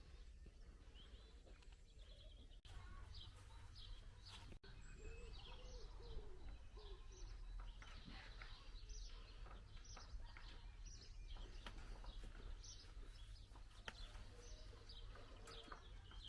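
Faint outdoor birdsong: many short, high chirps and calls from several birds, thickening about three seconds in, over a steady low rumble.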